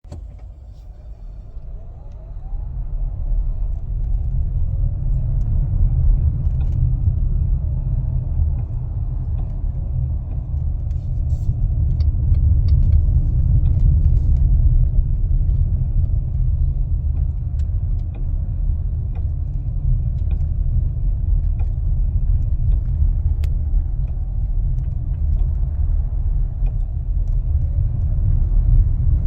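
2020 Chrysler Pacifica Hybrid driving with a steady low road rumble. Faint sharp clicks and clinks come through now and then as the accelerator pedal is pressed and released. The noise is recurring: a new passenger front axle and driver-side lower control arm did not cure it.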